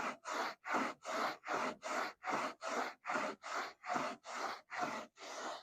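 Hand scrubbing on the car's painted bodywork: quick back-and-forth rubbing strokes, close to three a second, as the old failed finish is worked off down to the paint.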